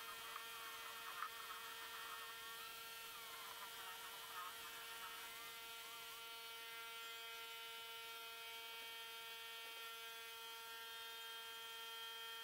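Faint steady electrical or mechanical hum at one fixed pitch, with a few faint warbling tones in the first half.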